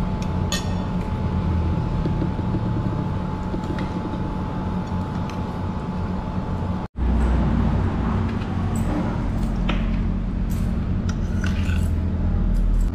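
Steady low background hum and rumble with scattered light clinks of a metal spoon against a ceramic bowl. The sound cuts out for an instant about seven seconds in.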